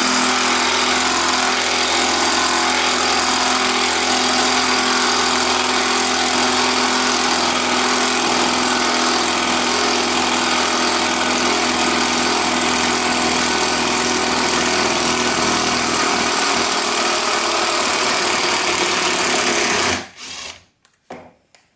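Bosch GDR 12V-EC cordless impact driver with a nut-driver bit running in reverse, backing a hex-head screw out of a piece of wood. It runs continuously and loudly, then stops suddenly about 20 seconds in, followed by a few light clicks.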